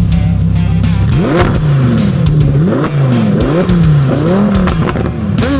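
Lamborghini Huracán's V10 engine idling, then revved repeatedly while standing still, the pitch rising and falling with each blip of the throttle.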